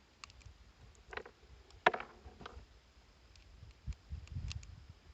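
A few short clicks from handling a Sccy DVG-1 pistol and its magazine. The sharpest click comes about two seconds in, with a low rumble later on.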